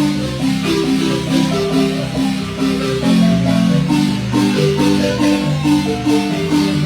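Marimba playing a son: a steady run of melody and bass notes on the bars.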